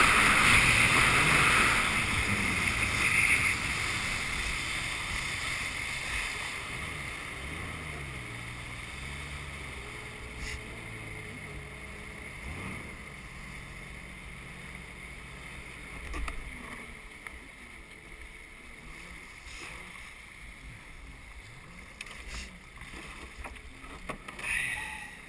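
Jet ski slowing from speed to idle: the rush of water and wind fades away and leaves the engine running low with a wavering pitch. A few knocks come near the end as the hull reaches the bank.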